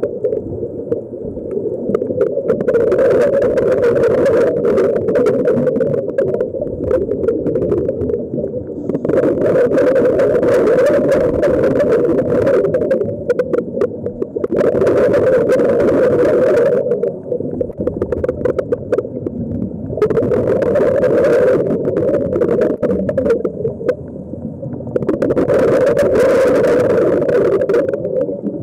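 Underwater sound heard through a camera housing: a steady muffled drone, broken every four to five seconds by a rush of bubbling hiss that lasts two or three seconds, a scuba diver breathing out through the regulator.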